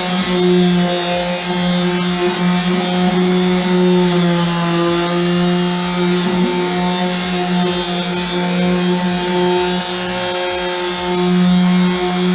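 Electric sander running steadily with a constant motor hum, its pitch sagging briefly about four to five seconds in.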